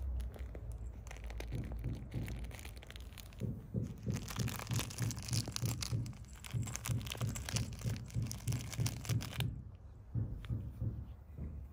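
A British Longhair cat wrestling a fabric toy on grass: crinkling and rustling as it grabs and bites, with a run of soft thumps a few per second in the middle as it kicks at the toy.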